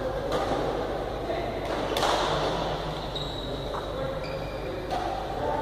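Badminton rally: several sharp racket-on-shuttlecock hits ringing in a large hall, the loudest about two seconds in, with short high shoe squeaks on the court floor between them.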